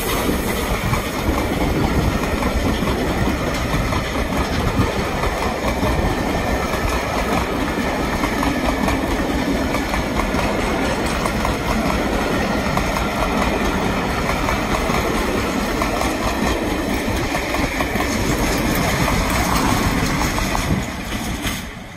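A passenger train's coaches running past a station platform at speed: a steady, loud rumble and clatter of wheels on the rails. The noise falls away near the end as the last vehicles pass.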